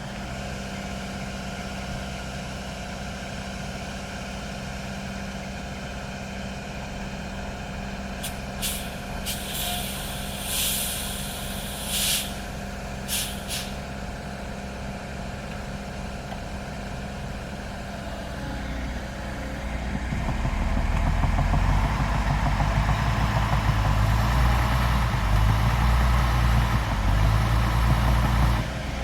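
Heavy diesel machinery running steadily, with several short hisses about a third of the way through. About two-thirds of the way in the engine note deepens and gets louder, as if it is taking up load, then drops back just at the end.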